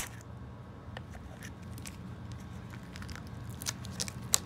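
Scissors snipping and clear plastic wrap crinkling as it is cut and peeled off a small wooden toy: scattered small clicks and crackles, with a sharp click at the start and another near the end.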